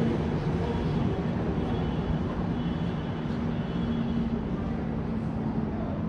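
Steady road traffic noise from vehicles on the highway overpass and the nearby street, with a faint hum that comes and goes.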